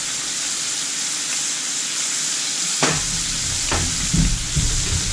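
White bass fillets sizzling steadily in a little canola oil in a frying pan on medium heat. About three seconds in comes a sharp knock, followed by a few low bumps.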